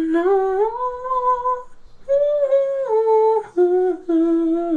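A woman humming a tune in long held notes that step between pitches, with a couple of short breaks.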